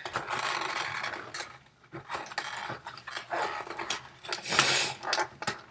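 Cardboard packaging and a plastic anti-static bag rustling and scraping as a graphics card is worked out of a tight-fitting box, with scattered clicks and knocks.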